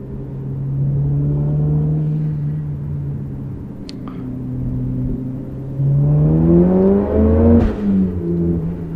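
Mitsubishi Lancer Evolution IX's turbocharged four-cylinder and 3.5-inch stainless exhaust, heard from the back seat inside the cabin. The engine pulls at steady revs, then revs rise hard from about six seconds in. Near the end the revs drop sharply, as at an upshift.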